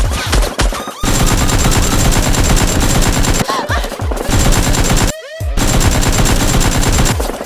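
Long bursts of rapid automatic gunfire, a machine-gun sound effect, with a short break about five seconds in.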